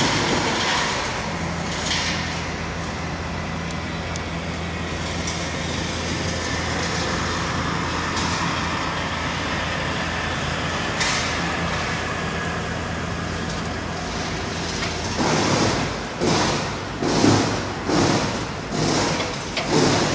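DAF XF lorry's diesel engine running steadily at low speed as it hauls a fairground ride trailer past. In the last few seconds come loud, uneven bursts of clatter and rattling.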